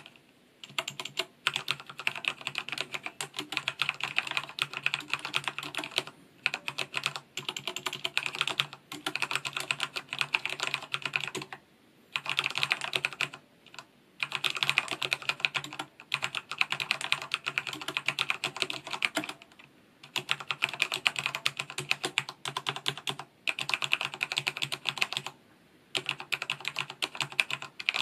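Typing test on a Corsair K68 RGB mechanical keyboard with Cherry MX Red linear switches under a silicone cover: fast runs of keystrokes in bursts of a few seconds, broken by short pauses.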